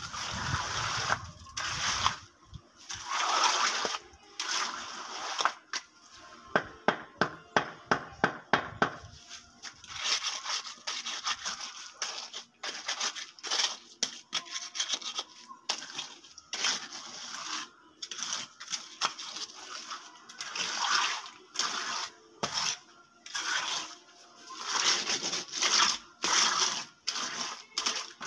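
Hand trowel scraping and swishing across wet concrete in repeated strokes as the slab surface is smoothed. About a quarter of the way in comes a run of about ten sharp taps, roughly three a second.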